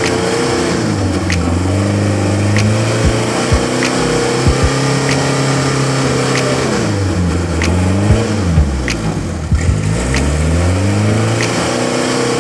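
Dump truck's diesel engine revving hard as the truck strains to climb a slippery muddy slope, its pitch rising and falling over and over, sagging low about two-thirds through and then picking up again. Scattered sharp ticks sound over the engine.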